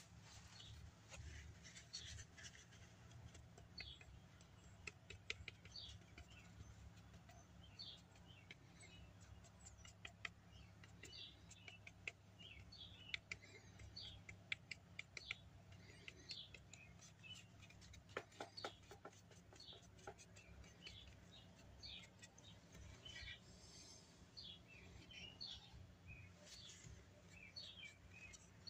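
Near silence: a low steady hum with many faint, short high-pitched chirps or squeaks scattered irregularly throughout.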